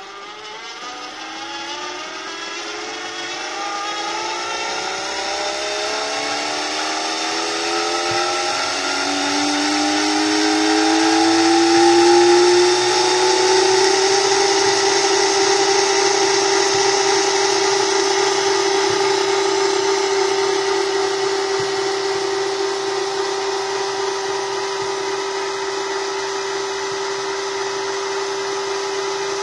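Stepper motor of a home-built PIC-controlled coil winder whining as it spins the bobbin. Its pitch rises steadily over about the first twelve seconds as the motor ramps up to winding speed, then holds a steady tone while it winds fine 0.05 mm enamelled copper wire.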